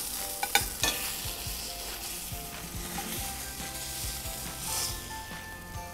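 Salmon fillet sizzling in a hot frying pan, with a metal spatula scraping and clicking against the pan as it is worked under the fish, the clicks mostly in the first second.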